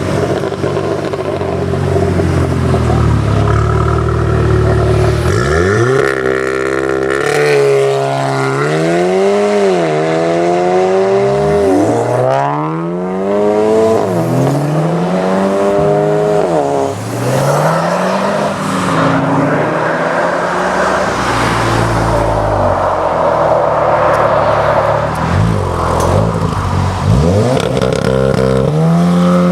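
A Volkswagen Golf performance car's turbocharged four-cylinder engine and exhaust revving, blipped up and dropped back several times in a row, then running on more steadily.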